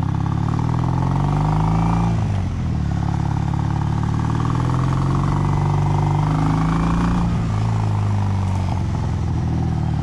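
Kawasaki W800's air-cooled parallel-twin engine running through stainless headers and reverse-cone megaphone slip-on mufflers, ridden at low speed. The revs climb, dip about two seconds in, climb again and ease off near the end, with wind noise on the microphone.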